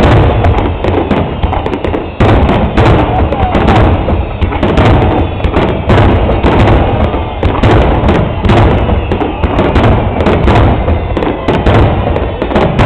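Fireworks display: aerial shells bursting in rapid, overlapping succession, several loud bangs a second over a continuous low rumble.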